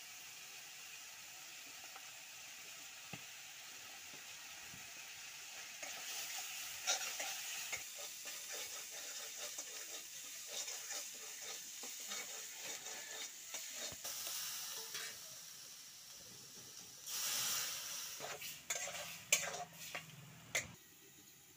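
Spiced masala sizzling in an aluminium kadai over a wood fire while a steel spatula stirs and scrapes the pan. The sizzle grows louder about six seconds in, and near the end come a louder spell of frying and several sharp metal clinks of the spatula against the pan.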